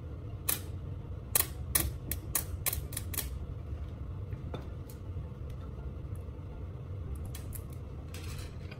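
Sharp electric crackling snaps from a battery-powered graphite-rod tip arcing against stainless steel mesh, about eight in the first three and a half seconds. A few fainter clicks follow near the end, over a steady low hum.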